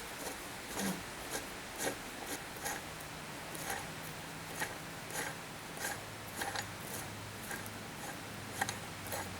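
Irregular light clicks and scrapes of metal hand tools and a metal engine mount being handled on a bench, over a faint steady low hum.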